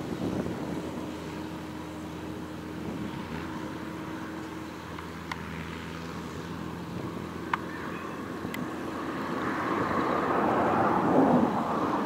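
Deutz-Fahr tractor engine running steadily while pulling a McHale F5500 round baler at work. The machine grows louder over the last few seconds as it comes closer, and a few sharp clicks sound along the way.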